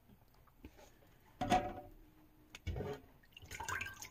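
A few short, quiet clatters and rustles of grapes being handled and sorted at a kitchen sink, with a sharp click about two and a half seconds in.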